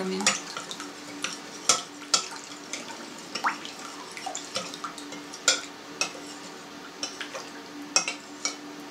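Metal spoon stirring a watery mix of sourdough starter, salt, sugar and oil in a bowl, the liquid swishing and the spoon clinking against the bowl's sides at irregular moments, to dissolve the salt and sugar.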